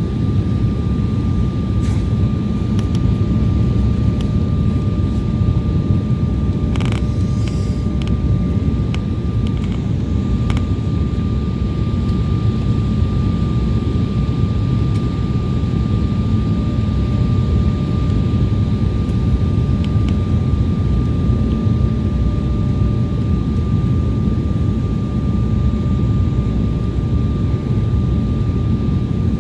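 Airliner cabin noise in flight: a steady engine and airflow rumble with a thin, steady whine, and a few faint clicks about 7 and 10 seconds in.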